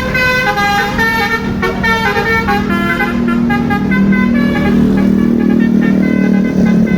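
Telolet bus horn, the multi-tone musical air horn of an Indonesian bus, playing a quick tune of stepped notes. From about three seconds in, a steady low hum grows underneath the notes.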